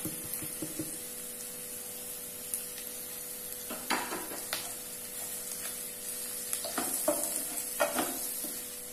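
Onions, green chillies and capsicum frying in oil in a nonstick pan, sizzling steadily as powdered spices are added. From about four seconds in, a spatula scrapes and knocks against the pan several times as the spices are stirred in.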